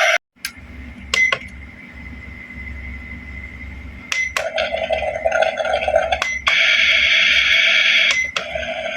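Toy kitchen playset's electronic sound effect from its small speaker, switched on and off by sharp button clicks. It cuts out just after the start and comes back about four seconds in, then keeps playing with two short breaks.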